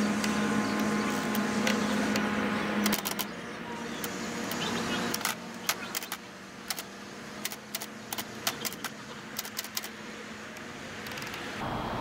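Typing on a 1957 Rheinmetall KsT portable typewriter: a run of sharp, irregular typebar strikes clacking against the platen, coming thick and fast in the second half, over a steady low hum.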